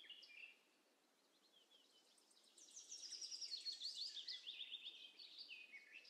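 Faint birdsong of high chirps, with a quick run of short falling notes about halfway through.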